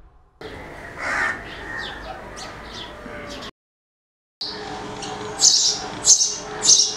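House sparrows chirping in short, quick notes. The sound cuts out for about a second midway, then comes back with three loud chirps near the end.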